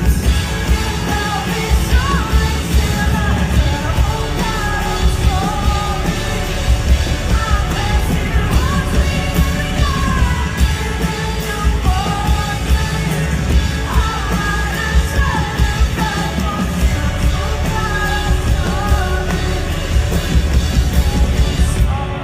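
Loud live pop-rock music with a singing voice over a full band, recorded in a concert hall.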